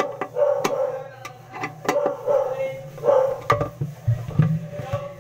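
A dog barking repeatedly in short, quick barks, with sharp clicks in between.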